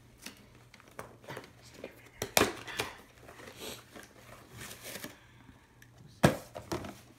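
Crinkling and rustling of a gift box and its wrapping being opened and handled, with scattered sharp crackles; the loudest come about two and a half seconds in and again about six seconds in.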